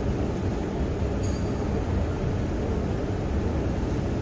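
Long escalator running, a steady low rumble with a hiss over it. A faint, brief high squeak comes about a second in.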